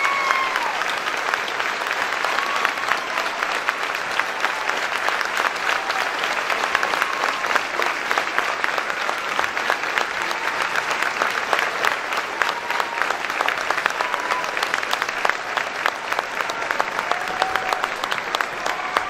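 A large crowd applauding steadily, with a few faint voices heard through the clapping.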